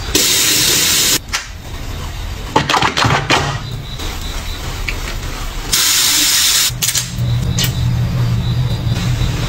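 Skincare products being dispensed: two hissing sprays about five seconds apart, each lasting about a second, with a few clicks and taps of containers between them. A steady low hum runs underneath.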